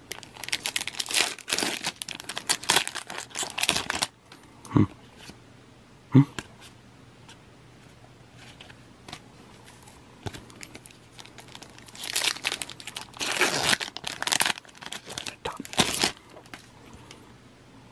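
Foil Pokémon booster pack wrappers being torn open and crinkled, in two bouts of rustling, the first at the start and the second a few seconds before the end. Two soft knocks come between them.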